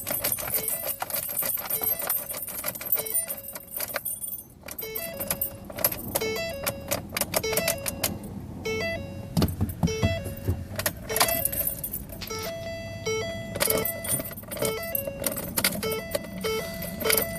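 A car's electronic warning chime beeping at a steady, even pace, over a rapid jingling and clicking like keys being handled.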